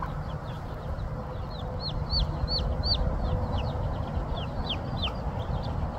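Baby chicks peeping: a run of short, high peeps, two or three a second, starting about one and a half seconds in.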